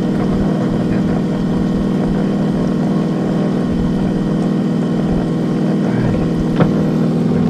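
Small fishing boat's engine running steadily at an even pitch, with one short knock about six and a half seconds in.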